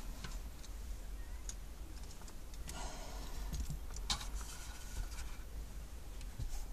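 Hands handling a car-stereo unit and its wiring connectors: scattered plastic clicks and rattles, the sharpest about four seconds in, over a steady low rumble.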